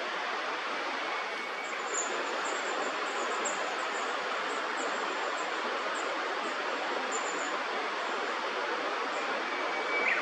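Steady rushing of river water, with a run of faint, very high chirps from about two seconds in to about seven and a half seconds in.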